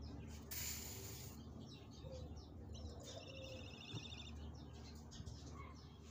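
Small birds chirping in the background, with a quick fluttering trill a little past three seconds in, over a low outdoor background hum. A short hiss comes about half a second in.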